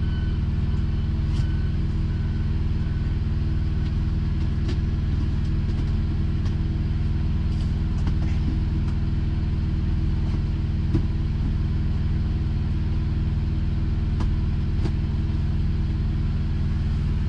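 Diesel engine idling steadily, a low drone heard inside a semi-truck cab, with a few light knocks as things are moved about. A backup alarm beeps faintly in the first few seconds.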